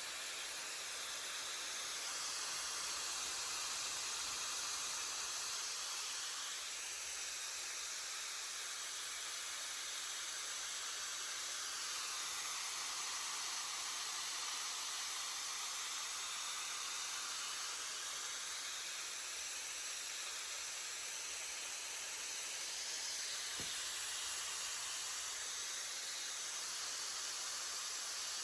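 ReFa Beautech Dryer SE hair dryer blowing: a steady airy hiss whose pitch slowly drifts up and down.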